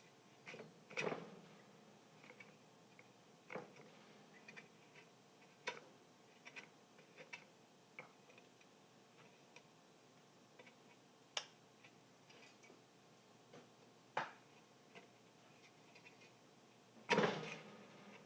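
Hand work on a loudspeaker under foam repair: light clicks and taps from tools and parts being handled, coming irregularly every second or two, then a longer, louder scraping rustle near the end.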